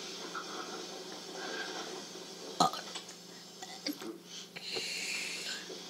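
A person burping: one short, sharp burp about two and a half seconds in, then a couple of smaller sounds, over a steady low hum.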